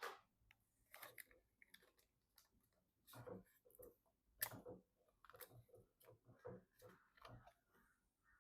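Faint, scattered clicks and taps with light rustling, irregularly spaced, as computer hardware is handled during assembly; the sharpest tap comes about four and a half seconds in.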